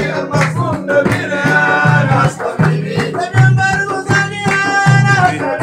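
Group of men chanting a Sufi devotional song in unison, with long drawn-out melodic lines, over several large hand-beaten frame drums keeping a steady rhythm of deep thumps.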